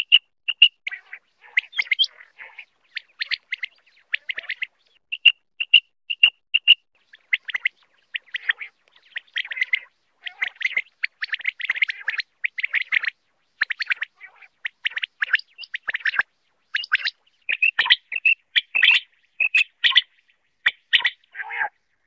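Quail (batair) calling over and over: quick series of short, sharp notes, crowding together midway through. It is the kind of call recording played to lure quail for hunting and netting.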